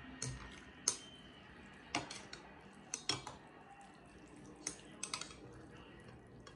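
Metal chopsticks and a metal spoon clinking against a bowl of pho noodle soup as the noodles are stirred and mixed in the broth: several sharp, irregular clinks.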